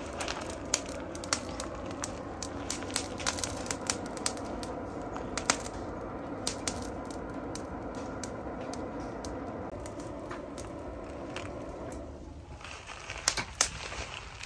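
Charcoal forge fire burning under a steady rush of air, crackling and popping throughout. The rush stops about twelve seconds in, and a few sharp metal knocks follow near the end.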